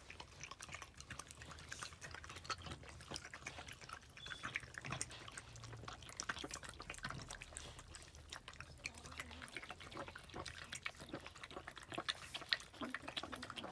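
Boston Terrier mother licking her newborn puppy clean right after its birth: a faint, continuous run of wet licking and smacking clicks.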